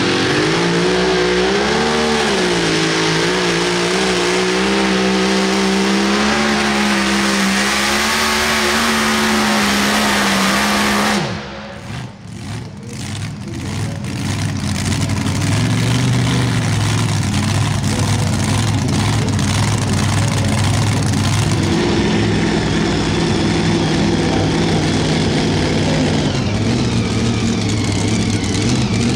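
Mini rod pulling tractor's engine running flat out under load as it drags the pulling sled, its pitch wavering at first and then holding steady. It cuts off abruptly about eleven seconds in as the pull ends. Later another mini rod's engine idles steadily.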